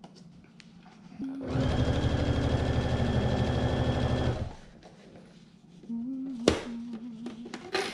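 Electric sewing machine stitching at a steady speed for about three seconds, starting a second and a half in and stopping abruptly. Later comes a softer hum with a couple of sharp clicks.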